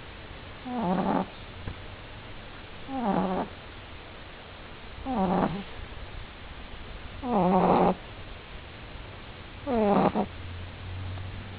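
French Bulldog puppy snoring in its sleep, five pitched snores about two seconds apart, each lasting about half a second.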